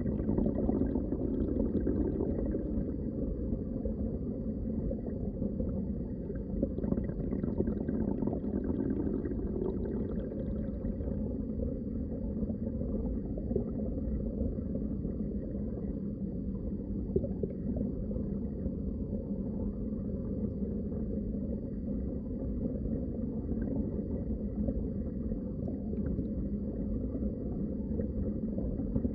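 Steady, muffled low rush of moving water heard underwater, with faint scattered crackles.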